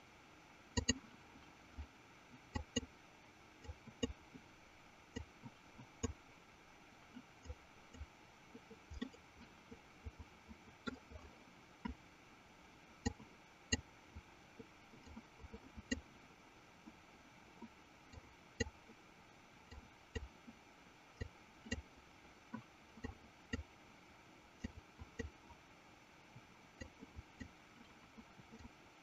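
Faint, irregular clicks of a computer mouse and keyboard, roughly one or two a second, over a low steady background hiss.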